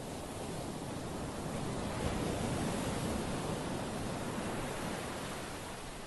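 Ocean surf breaking on a beach and washing up the shore: a rush of water that swells over the first two seconds and fades away near the end.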